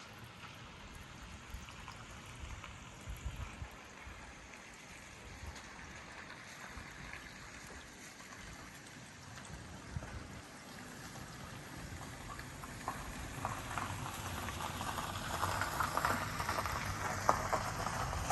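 Rain falling in a small storm, with scattered drops ticking and the patter growing louder in the last few seconds.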